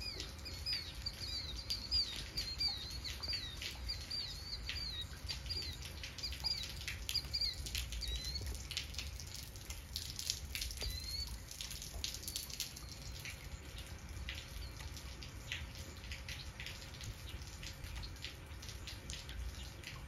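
Light rain dripping and pattering in scattered small ticks, while a bird repeats short high chirps for about the first ten seconds, under a steady low rumble.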